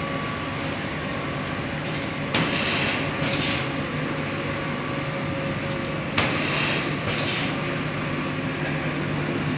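Stand-up zipper pouch making machine running with a steady mechanical hum. About every four seconds its cycle repeats: a sharp knock, a short hiss, then a high clack.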